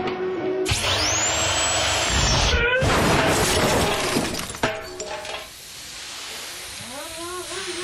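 Pneumatic wheel gun firing with a loud rush and a high whine that rises and then holds for about two seconds before cutting off. It is followed by a noisy crash-like sound that ends in a sharp click, then quieter sounds with short rising pitched calls near the end.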